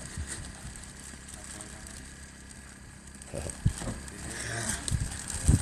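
Steady low rumble of wind on the microphone, with a couple of soft knocks about three and a half seconds in and a voice starting near the end.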